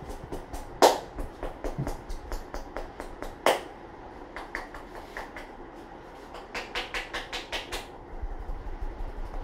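Hands tapping and slapping rapidly and rhythmically on a head during a head massage, about five strikes a second, with two much louder slaps, one about a second in and one about three and a half seconds in.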